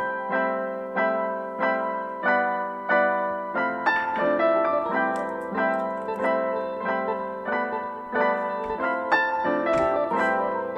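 Background piano music: a gentle melody of single notes and chords struck at a steady, unhurried pace.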